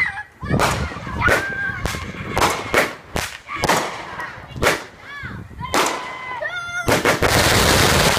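Multi-shot aerial fireworks firing: a string of sharp bangs, about two a second, with a few short whistling tones around five to six seconds in. From about seven seconds in the bangs give way to a dense crackling hiss.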